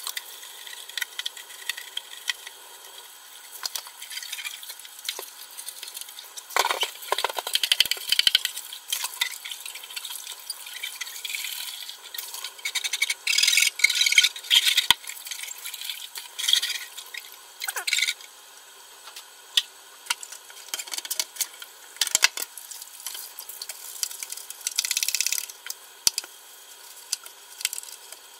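Kitchen tap running into a stainless steel sink while the plastic parts of a Drinkwell cat water fountain are scrubbed with a brush, rinsed and handled, with frequent clicks, knocks and brushing sounds.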